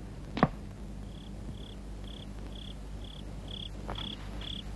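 One sharp click, then a cricket chirping in short, evenly spaced pulses about twice a second.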